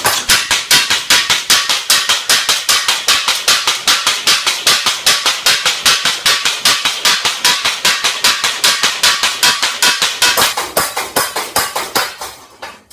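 Homemade mechanical power hammer running, its ram striking in a fast, even rhythm of several blows a second. Near the end the blows weaken and die away as it is stopped.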